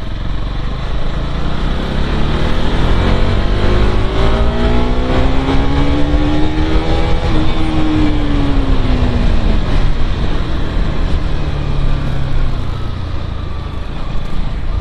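Bajaj Pulsar NS200's single-cylinder engine revving loudly, its pitch climbing for several seconds and then falling away, over a steady low rumble.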